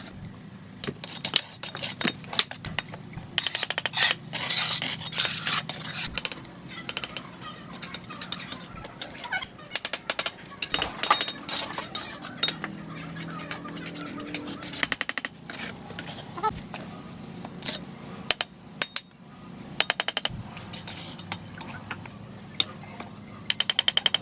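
Steel mason's trowel working on bricks and mortar while bricks are laid: scraping mortar and knocking bricks into place, with sharp clinks, scrapes and several runs of quick taps.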